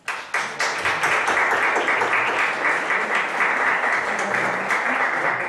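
Audience applauding: the clapping starts suddenly and holds steady.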